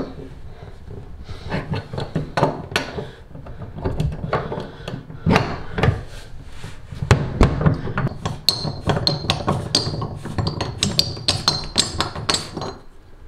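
Tub drain wrench turning in an old chrome bathtub drain flange, clicking and knocking against the metal as the flange is unscrewed from the drain. The clinks come quicker and ring more in the second half, as the flange works loose.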